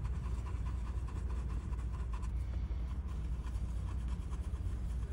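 Alcohol-wet swab scrubbing in small circles on a circuit board, a soft steady rubbing as flux residue is cleaned off around the solder holes, over a steady low hum.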